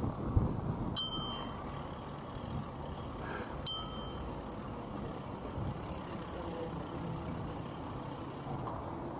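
A bicycle bell rung twice, about two and a half seconds apart, each a single bright ding that dies away quickly, over the steady low rumble of the mountain bike rolling along.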